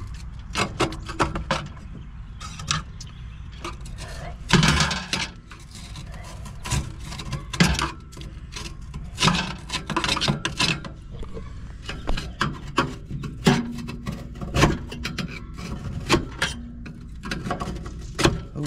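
Irregular scraping and clicking of a screwdriver and fingers working at silicone sealant smeared over a gas pack's rusted heat exchanger openings, metal scraping on metal.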